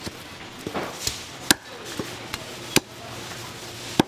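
Cleaver chopping chicken on a cutting board: a run of sharp, uneven chops, the loudest about a second and a half in, near three seconds and just before the end.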